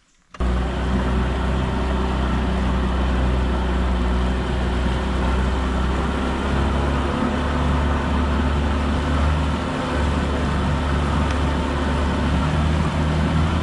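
Small tiller outboard motor running steadily under way, pushing the boat along, with a rush of water noise. It begins abruptly about half a second in.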